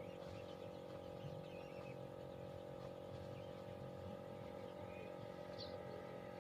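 Small recycled DC motor (dynamo) of a miniature water-pump engine model running steadily with a faint, even hum. Birds chirp faintly in the background.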